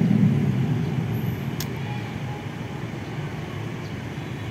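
Road traffic: a motor vehicle's engine hum fading away in the first second, then a steady low traffic rumble, with one sharp click about a second and a half in.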